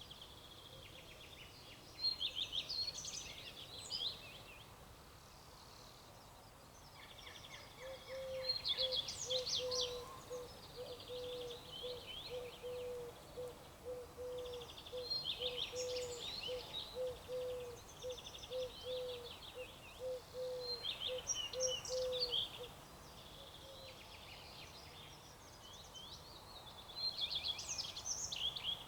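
Songbirds singing: short phrases of rapid high chirps and trills, repeated every few seconds. Through the middle, a steady run of short low notes, about two a second, goes on for roughly fifteen seconds.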